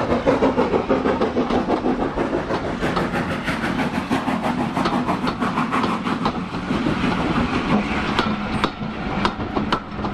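A steam-hauled passenger train passing close by: the Austerity 0-6-0 saddle-tank locomotive's exhaust beats at the start, then the coaches' wheels clicking over the rail joints as they roll past, the clicks sharper and more spaced near the end.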